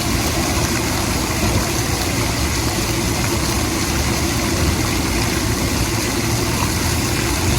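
A loud, steady rushing noise with a low hum under it, unbroken throughout.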